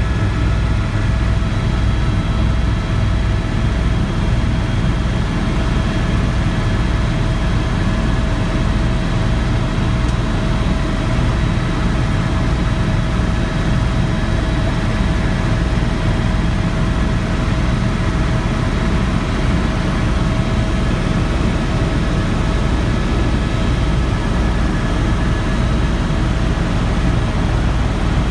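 Helicopter engine and rotor noise heard from inside the cabin in flight: a steady, loud low beating of the rotor with a few steady whine tones above it.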